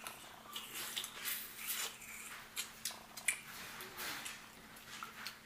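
Close-miked eating of steamed littleneck clams: wet smacking and slurping mouth noises mixed with sharp little clicks of forks and clam shells, scattered irregularly over a faint steady hum.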